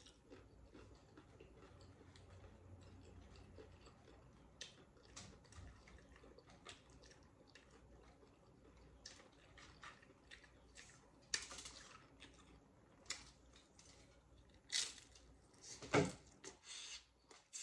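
Eating loaded nachos close to the microphone: scattered small clicks and crackles as chips are picked through, then a few louder crunches and chewing near the end, one the loudest of all.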